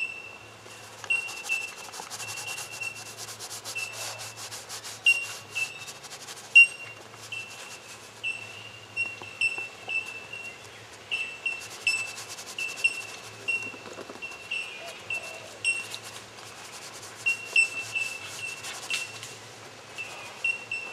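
Stiff bristle paintbrush scrubbing paint onto a board in bursts of quick back-and-forth strokes. Short high tinkling notes repeat steadily behind it.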